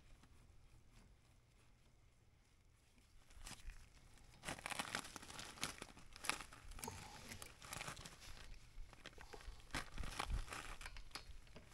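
Rustling and crinkling of a blue shop towel being rubbed and wiped over the excavator's track drive housing and plugs, with a few light taps. It starts about four seconds in and runs on irregularly after a quiet start.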